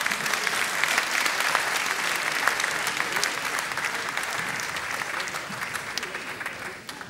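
Arena crowd applauding: many hands clapping together, dying away near the end.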